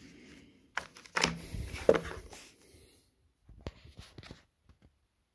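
Handling noise from a smartphone and its cardboard box being moved and set down on a table: a run of knocks and rustling in the first three seconds, then a few light taps.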